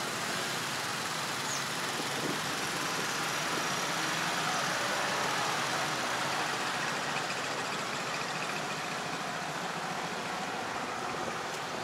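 Steady road traffic noise of passing cars, swelling slightly around the middle as vehicles go by.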